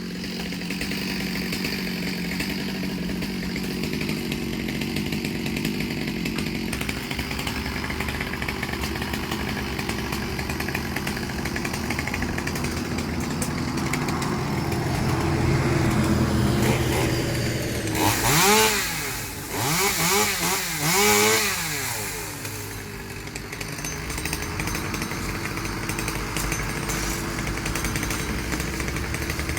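Engine of a power cutting tool used to trim trees and hedges, running steadily. About two thirds of the way through it revs up and down several times, most likely as it cuts.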